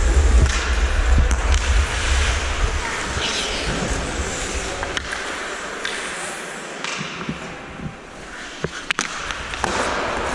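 Ice hockey skates scraping and gliding on the ice, heard from a helmet-mounted camera, with a low wind rumble on the microphone for the first few seconds. A few sharp knocks come through near the middle and toward the end.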